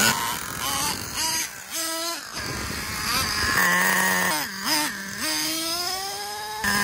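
Traxxas Revo 3.3 nitro RC truck's small glow-fuel engine running with a high, buzzing whine, its revs rising and dropping several times, climbing steadily toward the end and then holding an even pitch.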